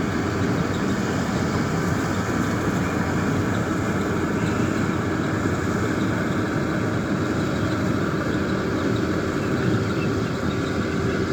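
Metal-FM World full-feed combine harvester running steadily, its engine and machinery giving a continuous, even drone.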